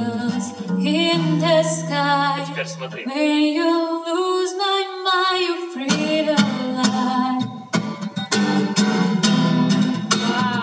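Live female voice singing a long, wavering melodic line over strummed acoustic guitar. From about six seconds in, the guitar's strumming comes to the fore in a steady rhythm.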